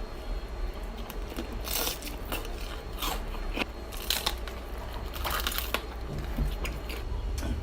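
Crispy pata's deep-fried pork skin crunching and crackling close to the microphone in a run of irregular crunches, as it is bitten and broken.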